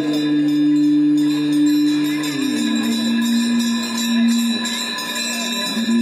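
Hindu aarti music with ringing bells. A long held note drops to a lower pitch about two seconds in and rises again near the end, over steadily ringing bells and faint regular metallic clangs.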